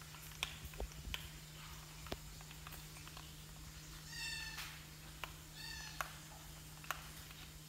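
A baby macaque gives two short, high-pitched calls, about four and about five and a half seconds in. Scattered sharp clicks sound throughout.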